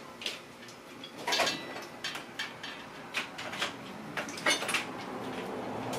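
Metal clamps clinking and knocking against each other on a wall-mounted clamp rack as they are sorted through and lifted off, a scatter of sharp clatters.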